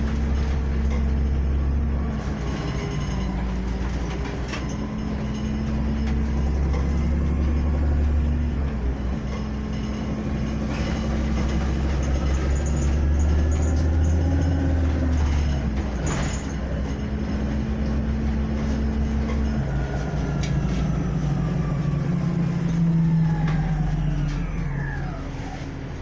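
City transit bus heard from inside the cabin: the engine and drivetrain run steadily while under way, with one sharp click about sixteen seconds in. Near the end a whine falls in pitch as the bus slows.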